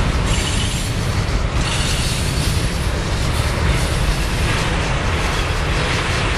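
Freight train rolling past: a loud, steady rumble and rail noise from its cars going by on the track, with a deep drone underneath from the diesel locomotives pulling at its head.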